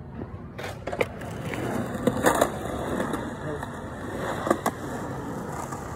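Skateboard wheels rolling on concrete, with a few sharp clacks of the board, the loudest about two seconds in.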